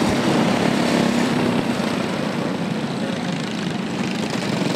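Go-kart engines running on the racetrack, a steady buzz that grows slightly quieter after about a second and a half.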